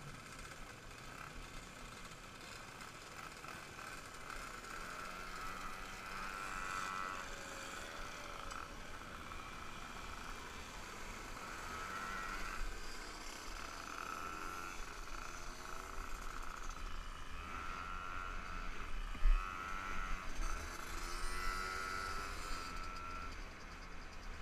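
Two-stroke moped engines running as a group of mopeds rides off, their pitch rising and falling as they rev and ease off. Wind rumbles on the microphone, and there is one brief thump about three-quarters of the way through.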